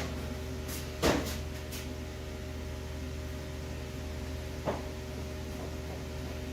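Steady machine hum with a sharp clack about a second in and a lighter knock near five seconds.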